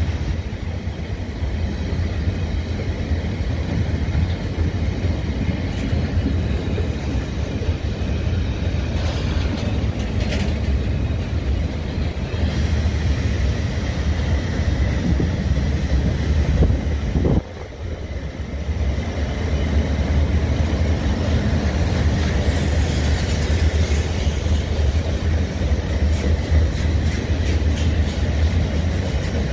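A train running past at close range: a steady, heavy low rumble that drops away sharply for a moment about seventeen seconds in, then resumes.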